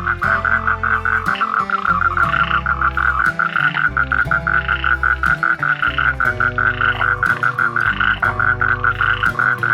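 Toad calling in one continuous, rapidly pulsed trill, with guitar-like background music underneath.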